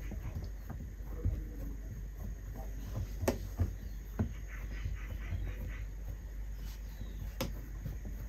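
Pizza dough being pressed and spread out by hand: soft pats and taps with a few sharper knocks, over a low steady hum.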